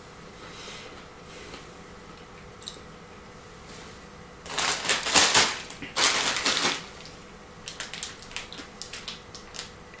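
Clear plastic bag of wasabi-coated peanuts crinkling loudly as it is picked up and handled, about halfway through, followed by a run of light clicks and rustles as the bag is lifted.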